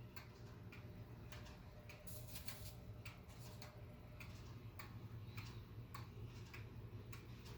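Faint, steady ticking of a Japanese regulator pendulum wall clock's escapement, an even run of light ticks.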